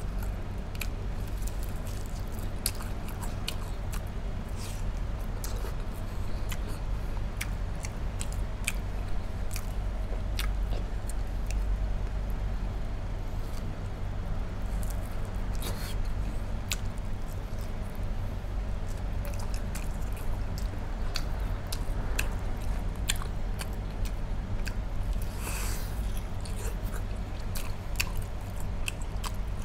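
Close-up chewing and biting of braised pork spare ribs, with many short, irregular mouth clicks and smacks over a steady low hum.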